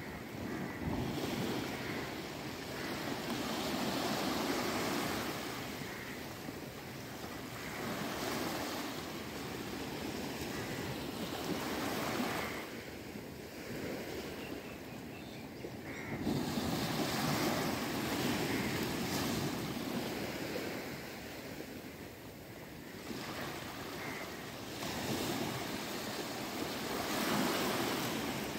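Small sea waves washing and breaking on a sandy shore, the surf noise swelling and fading every few seconds, with some wind on the microphone.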